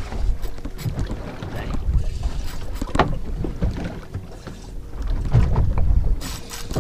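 Wind rumbling on the microphone and water against the hull of a boat at sea, with a faint steady hum underneath. A few clicks and knocks sound, the sharpest about three seconds in, and a short hiss comes near the end.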